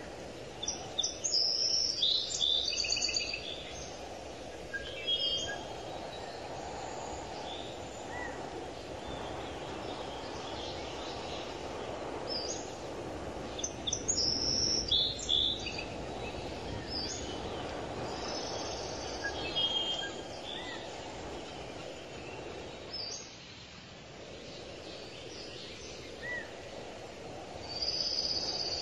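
Small birds chirping and calling in short clusters, over a steady low background noise.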